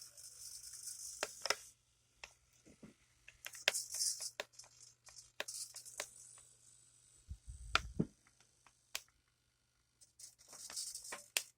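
HPI Pro 4 electric RC car running in short bursts, its Reedy brushed motor whirring and the tyres hissing, with scattered clicks and one low knock about halfway through.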